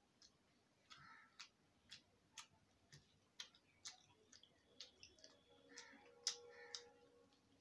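Faint, irregular wet clicks and smacks from a mouth chewing rice and curry, about one or two a second, with a few soft squishes of fingers mixing rice on the plate.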